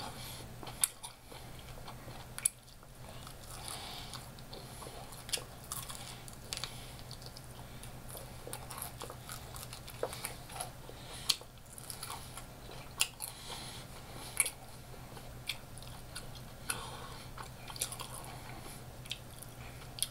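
Close-up biting and chewing of crispy fried chicken wings (Popeyes ghost pepper wings), with many scattered sharp crunches of the breaded coating. A low steady hum runs underneath.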